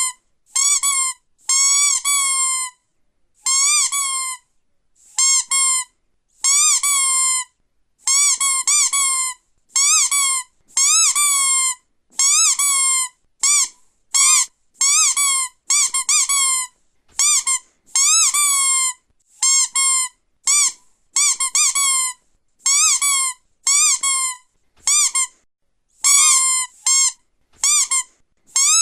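Squeaky toy squeezed over and over, each squeeze giving a high pitched squeak that bends up and down, some short and quick in pairs, some drawn out, with short silent gaps between.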